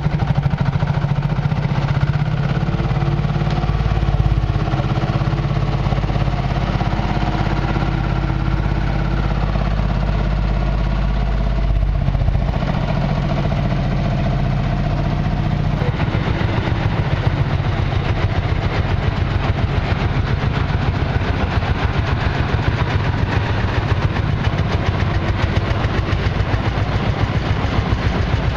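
Vintage tractor engines running as the tractors drive slowly past. About halfway through, a rapid, even firing beat takes over as the next tractor comes by.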